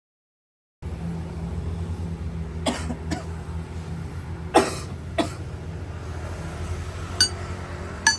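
A steady low machine hum starts about a second in, with four sharp metal knocks of rebar being struck or handled, the loudest in the middle, and lighter metallic clinks near the end.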